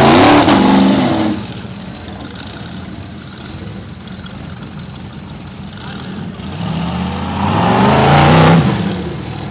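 Off-road buggy engine revving high, falling off to a lower steady run about a second in, then revving up again for a second or so near the end before easing off.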